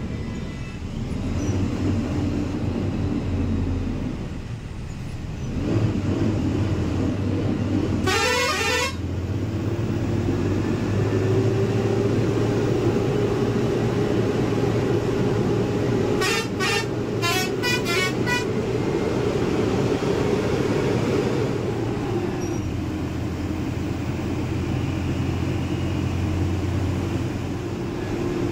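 Ashok Leyland BS VI diesel engine of a sleeper coach running under way, heard from inside the cab, its pitch slowly rising and easing off a little past twenty seconds. About eight seconds in, a horn sounds with a steeply rising pitch, and around sixteen to eighteen seconds comes a rapid string of short horn toots.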